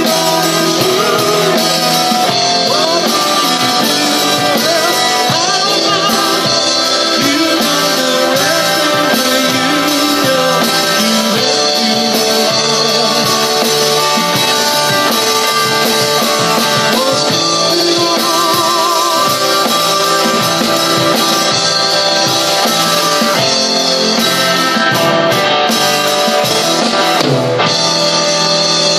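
A live rock band playing electric guitars over a drum kit, with singing.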